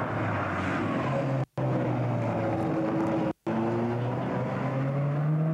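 Rally car engines running at high revs as cars pass, the sound dropping out twice for a split second. In the last two seconds a Ford Sierra RS Cosworth's turbocharged four-cylinder engine pulls past, its pitch slowly rising.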